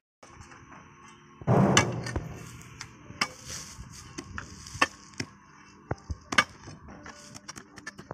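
Iron digging bar jabbed into hard, stony ground to dig a post hole: a run of sharp, irregular strikes with gravel crunching, the loudest a heavier crunching blow about a second and a half in.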